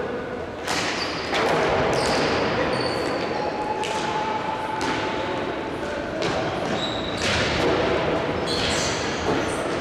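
Indoor hockey play echoing in a sports hall: repeated sharp knocks of stick and ball about every second, mixed with short high squeaks.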